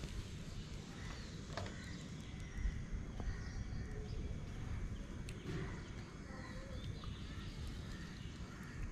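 Outdoor ambience: a steady, fluttering low rumble of wind on the microphone, with faint, scattered bird calls.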